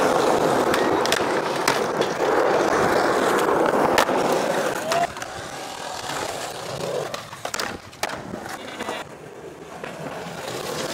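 Skateboard wheels rolling fast over smooth concrete: a loud, steady rumble dotted with sharp clicks and knocks from the board. About five seconds in the rolling grows quieter, and the clicks and knocks carry on.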